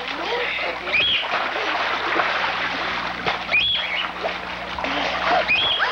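Water splashing and churning in a swimming pool as swimmers flip and dive, with a few short high-pitched cries.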